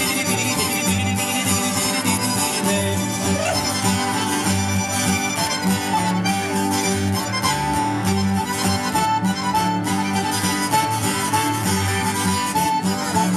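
Background music led by a free-reed instrument such as an accordion or harmonica, playing held notes over a steady low accompaniment.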